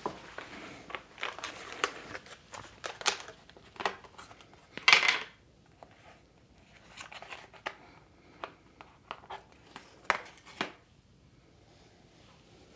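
Hands handling small computer parts and their plastic packaging: a run of irregular clicks, taps and rustles, with the loudest crackle about five seconds in.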